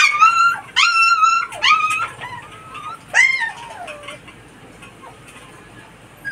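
A puppy whimpering: a string of high-pitched whines, several held level and ending in a downward slide, loudest over the first three and a half seconds and then trailing off into fainter whines.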